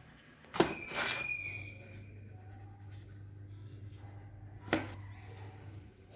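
Handling of a plastic LCD writing tablet and its stylus: a sharp click about half a second in, a brief rubbing scrape, then a second sharp click about four seconds later, over a steady low hum.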